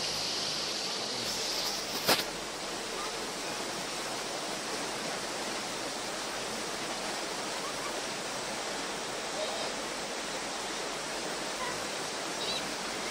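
Floodwater rushing down a street: a steady, even rush of water, with one sharp click about two seconds in.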